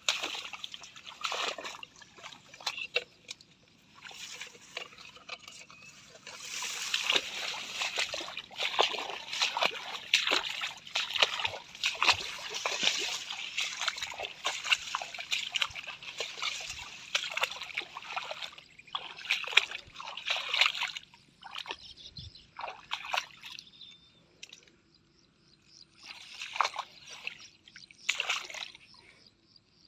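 Irregular splashing and rustling of someone moving through wet grass and crop plants in shallow water, busiest in the middle and thinning out after about twenty seconds, with one more flurry near the end.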